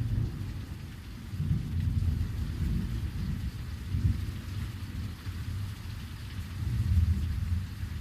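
Heavy rain pouring steadily while thunder rolls and rumbles low, swelling and fading several times.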